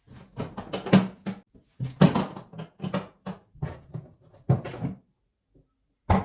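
Hard plastic rolling toolbox being handled: a run of sharp clicks and knocks over several seconds, with a faint steady hum beneath.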